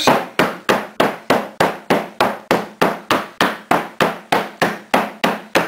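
Loaf mould full of freshly poured soap batter banged down repeatedly on the worktop in a steady rhythm, about three knocks a second, to knock out air bubbles.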